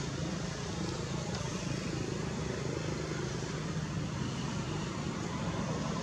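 Steady low rumble of motor traffic, even and unbroken, with a faint hiss over it.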